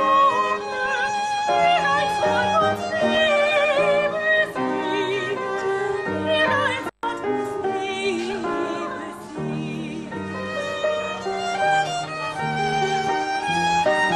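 Violins playing a melody with vibrato over upright piano accompaniment, in a classical style. The sound cuts out completely for an instant about seven seconds in.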